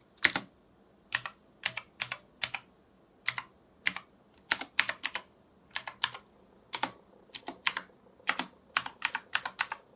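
Typing on a budget 60% mechanical keyboard with clicky blue switches, modded with tape and PE foam: separate sharp keystroke clicks at an uneven, unhurried pace, some in quick pairs.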